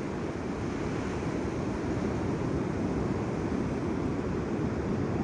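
Ocean surf washing onto the beach, with wind on the microphone: a steady, even rush.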